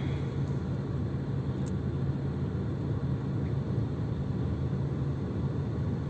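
A car engine idling in a traffic jam, a steady low hum heard from inside the cabin.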